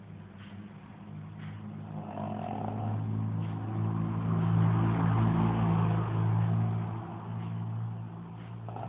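A motor vehicle passing by, its engine hum and tyre noise swelling over a few seconds and then fading.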